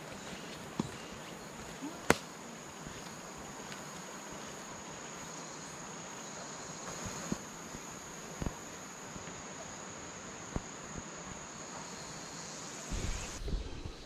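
Steady high-pitched insect buzzing that cuts off shortly before the end, with a few sharp clicks over it, the loudest about two seconds in.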